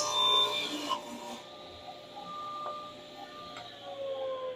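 Table saw finishing a cut through a small hardwood board, the cutting noise dying away in the first second while the motor and blade keep running with a steady hum. Near the end a click, then the hum starts falling in pitch as the saw is switched off and winds down.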